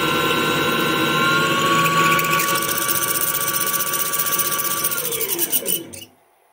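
A home-built CNC lathe's spindle runs with a steady whine as a drill bit in the chuck cuts into an aluminium block. From about two seconds in, a fast rattling chatter joins it, at a spindle speed the machinist found a little too fast. About five seconds in, the spindle winds down in falling pitch and stops just after six seconds.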